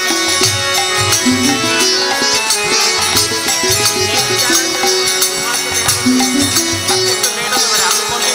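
Kirtan instrumental passage: a harmonium plays a stepping melody of held notes over regular low strokes of a mridanga drum, with the bright jingle of small hand cymbals throughout.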